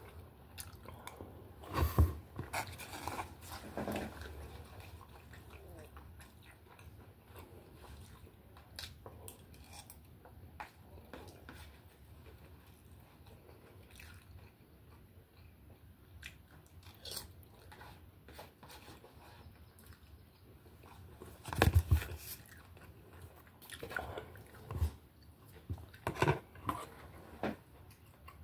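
A person chewing and eating close to the microphone, with scattered small clicks from a spoon and plate and a few louder knocks, the loudest about two seconds in and again around twenty-two seconds in.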